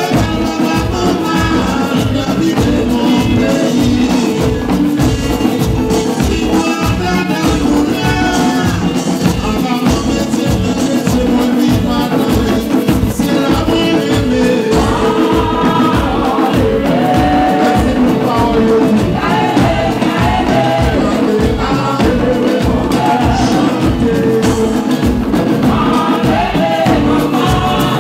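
Live band music: large hand drums beating a steady pulse of about two beats a second, under lead vocals with a sung chorus.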